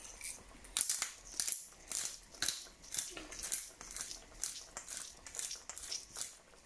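Pepper mill grinding black pepper: a run of short grinding strokes, about two a second, starting about a second in.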